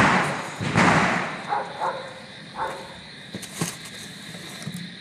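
Packaging rustling and tearing as a boxed 60-shot fireworks cake is unwrapped. The rustling dies down within the first second, followed by a few short knocks and clicks of the box being handled.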